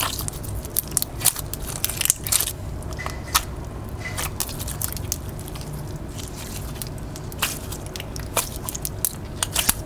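Hands squishing and pressing a slime packed with foam beads, giving irregular crackly pops and clicks.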